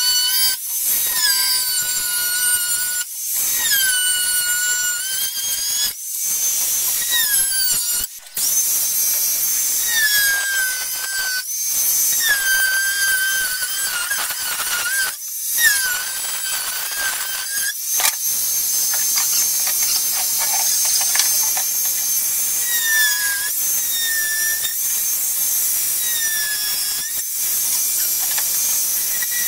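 Handheld angle grinder cutting plywood. Its high whine keeps sagging in pitch and recovering, with a few brief breaks.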